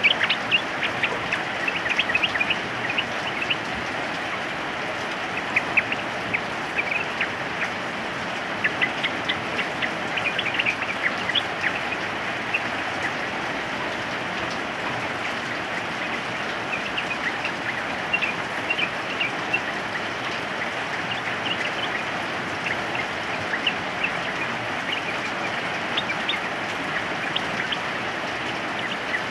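Steady rain hiss with yellow-vented bulbuls calling over it in scattered bursts of short, quick chirps, fewer for a few seconds near the middle.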